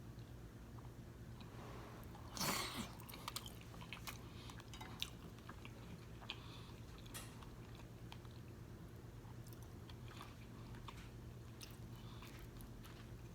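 Close-miked chewing and mouth sounds of someone eating fufu with egusi soup: soft wet smacks and small clicks, with one louder mouth noise about two and a half seconds in. A steady low hum runs underneath.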